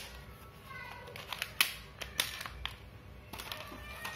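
Scattered plastic clicks and knocks from a toy Desert Eagle BB pistol being handled, with the sharpest click about one and a half seconds in.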